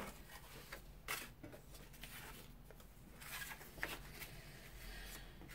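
Card stock and paper pieces being handled on a craft table: a few soft rustles and light taps.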